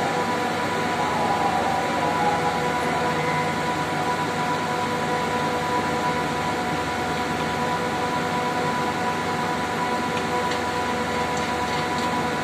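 Steady drone of running air-cooled chiller machinery, a constant rushing noise with several held hum tones. A few faint light ticks near the end.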